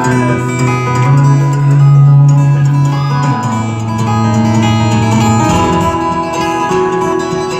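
A twelve-string acoustic guitar played solo and amplified live: a dense picked and strummed pattern of ringing notes over deep sustained bass notes, the bass note changing about three seconds in.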